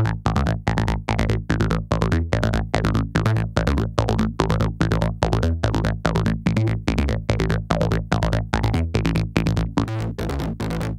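Electronic dance music loop with a steady beat of about four hits a second over a sustained bass line. The bass is being driven through a multiband saturator plugin, and its distortion mode and drive are changed while the loop plays. Near the end the level evens out and the hits stand out less.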